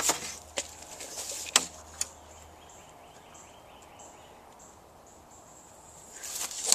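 Sharp taps and knocks as a spirit level is set down and shifted on a plywood sheet, several in the first two seconds, then faint outdoor background. A short scraping noise rises just before the end.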